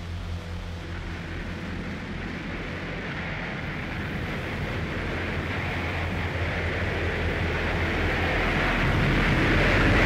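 Dark droning noise intro of a black metal track: a steady low hum under a rumbling hiss that swells steadily louder.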